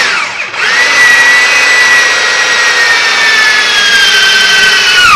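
Electric hand drill boring into a wooden board. The motor whine briefly dips and picks up again just after the start, then holds, its pitch sagging slowly as the bit bites. Near the end it stops and winds down with a falling pitch.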